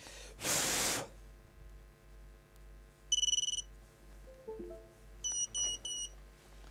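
Electronic beeps from the setup gear: one short warbling high beep, a few brief lower notes, then three short high beeps in quick succession. A loud half-second hiss comes just before them.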